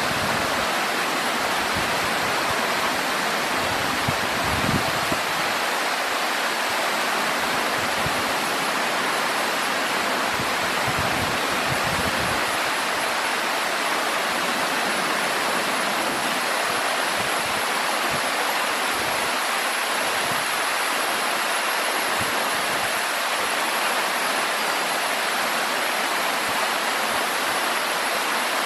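Steady rushing of running water, an even hiss that does not change, with a few brief low rumbles about four and eleven seconds in.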